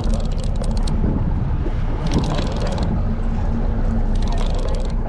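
Fishing boat's engine running steadily with a low hum, and wind noise on the microphone. Short spells of rapid clicking come near the start, about two seconds in, and again past four seconds.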